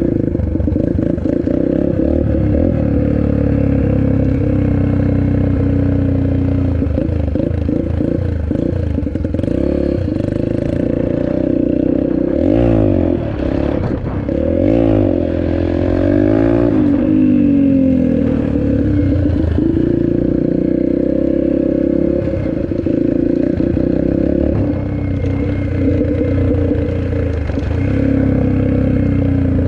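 Small dirt bike engine running steadily as the bike is ridden. About halfway through, its pitch rises and falls several times as the throttle is opened and closed.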